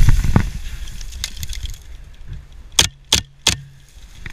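Rattling and rumbling of gear being handled on the run, with two loud knocks at the start, then three sharp airsoft gun shots about a third of a second apart.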